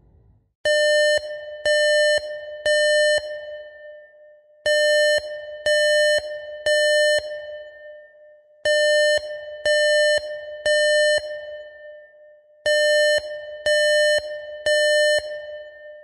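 Electronic smoke or fire alarm beeping in groups of three: half-second beeps half a second apart, then a pause, each group starting every four seconds. This is the temporal-three evacuation pattern. Each beep rings on briefly with an echo.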